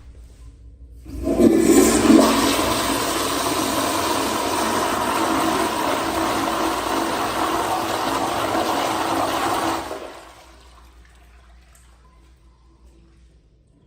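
American Standard Madera toilet flushing: a loud, splashy rush of water starts about a second in, holds steady for about nine seconds, then cuts off quickly, leaving a faint trickle.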